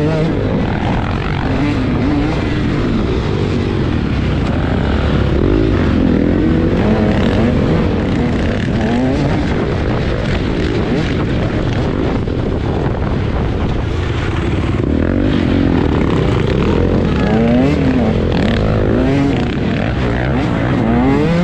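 KTM 150 two-stroke dirt bike engine running hard under race riding, its pitch repeatedly climbing and dropping back as the throttle is opened and shut.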